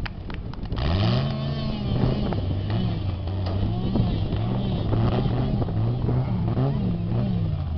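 Off-road 4x4 trial vehicle's engine revving hard under load on a steep hill climb. The pitch jumps up about a second in, then swells and falls back again and again as the throttle is worked.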